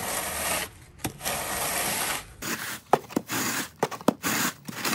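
A timber screed bar dragged in repeated strokes across a loose stone-dust bedding layer, each stroke a gritty scrape, with a few small knocks in the second half.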